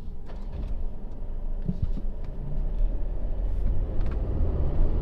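Mercedes-Benz GLC 300 SUV pulling away and accelerating, heard from inside the cabin: a low engine and road rumble that grows louder about halfway through.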